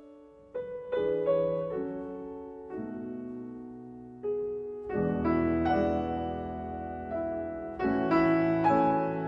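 Solo piano music: single notes and chords struck and left to ring. Fuller, louder chords come in about halfway through and again near the end.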